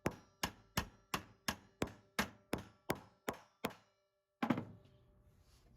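Hammer giving light, evenly spaced taps, about three a second, on a steel pin to drive the old hinge pin out of a VW Beetle deck lid hinge. After a short break there is a single heavier thump.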